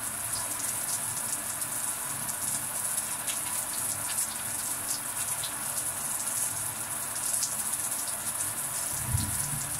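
Running water hissing steadily, with faint scattered patters of drops.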